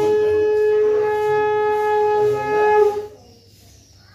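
A conch shell (shankha) blown in one long, steady note that bends slightly and stops about three seconds in.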